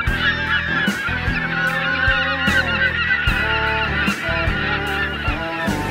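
A large flock of waterbirds calling, many short overlapping calls at once, over background music with a steady beat.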